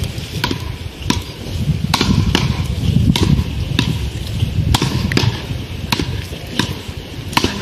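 Wooden beach rackets hitting a small ball back and forth in a rally: a sharp clack every half second to second, over a low rumbling noise.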